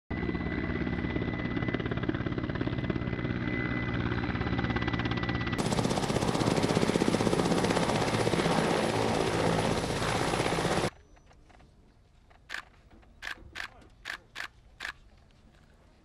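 Mi-8 helicopter's turbine engines and rotor running. The sound starts as a steady hum with several held tones and changes abruptly, about five seconds in, to a louder rush with a high whine. It cuts off sharply about eleven seconds in, leaving a faint quiet stretch with a few short high chirps.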